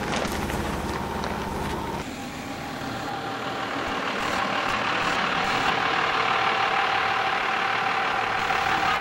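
A heavy vehicle's engine running, such as a truck or earthmover, with a steady whine. The sound changes abruptly about two seconds in, then grows louder and holds steady.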